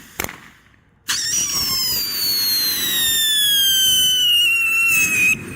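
A short crack, then about a second later a firework's shrill whistle starts and holds for about four seconds, sliding slowly down in pitch before cutting off suddenly.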